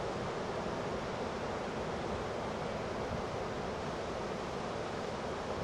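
Heavy hurricane-driven surf breaking over and over in a steady, continuous wash of noise.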